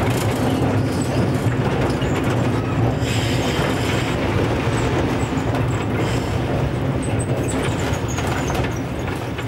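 Vintage electric tram running along its track: a steady, low rumble of wheels and running gear on the rails, easing a little near the end as it slows.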